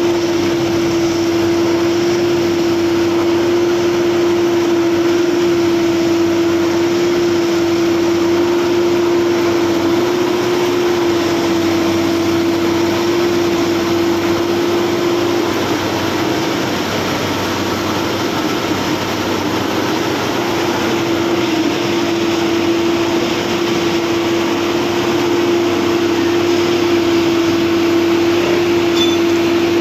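Plasser Duomatic 08-32 C track tamping machine running and working: a loud, steady mechanical drone with a constant hum held on one pitch, which falters briefly about halfway through.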